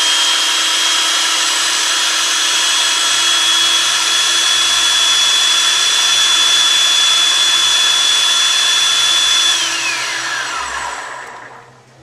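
Food processor motor running at full speed, puréeing a liquid marinade with a steady high whine. About nine and a half seconds in it is switched off, and the whine falls as the blade spins down.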